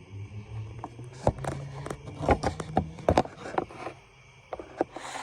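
Irregular knocks, clicks and light scrapes of hard objects being handled and set down, over a low hum that fades out a little past halfway.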